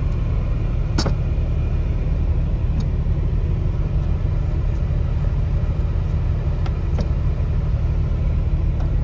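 Semi truck's diesel engine idling, a steady low rumble heard inside the cab. Over it come a few light clicks and scrapes of a spoon scooping seeds out of a halved butternut squash, the clearest about a second in.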